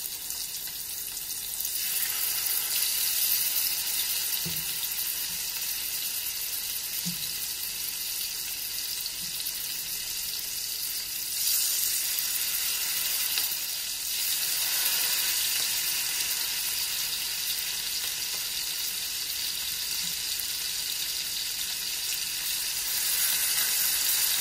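Marinated beef steaks sizzling in hot olive oil and butter in a nonstick frying pan; the sizzle swells in steps as more steaks are laid in with metal tongs. A few soft knocks come in among the sizzling.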